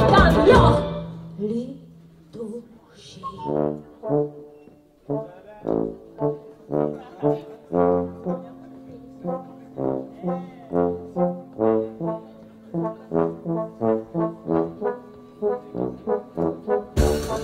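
The full band cuts off about a second in, leaving a low brass instrument playing a solo break of short, detached notes, sparse at first and then about two a second and quicker. The whole band comes back in near the end.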